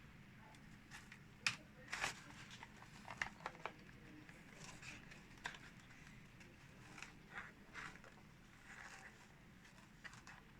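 Scattered small clicks and rustles of handling, the sharpest about a second and a half and two seconds in, over quiet room tone.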